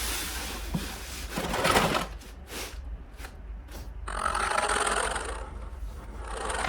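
Toy cars rolling and scraping down a slope, with a run of rattling clicks in the middle.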